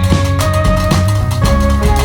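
Background music with a steady drum beat and sustained synth notes.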